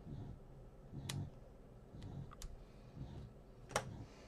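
Small craft scissors snipping twine ends: three or four sharp clicks about a second apart, the loudest near the end, with soft handling sounds of paper on the table.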